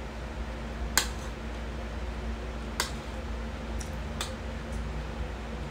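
Fork clinking against a plate while eating, three sharp clinks a second or two apart, over a steady low hum.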